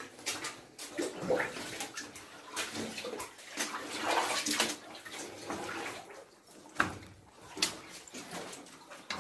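People wading through water in a flooded mine tunnel: irregular sloshing and splashing steps, with a few sharp clicks in the last few seconds.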